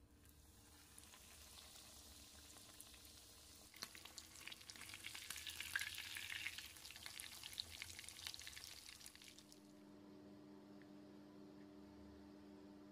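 Breaded cutlet sizzling and crackling in hot oil in a frying pan. The crackling grows louder about four seconds in and cuts off suddenly near the end.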